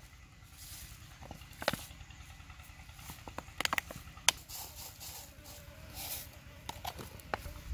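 Handling of a plastic seasoning jar: a few sharp clicks and taps from its lid and sides, then white seasoning shaken out over raw chicken feet in a plastic basin.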